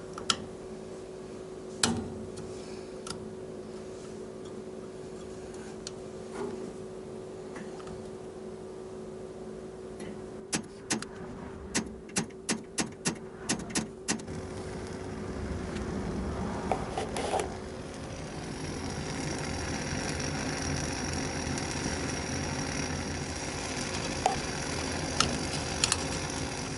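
Pilot igniter on a Williams propane wall furnace clicking about ten times in quick succession as the pilot is lit. From about two-thirds of the way through, a steady rushing noise sets in as the burner fires.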